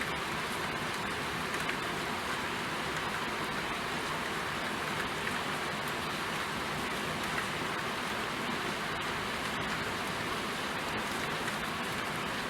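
Steady rainfall, an even hiss of drops with faint scattered patters.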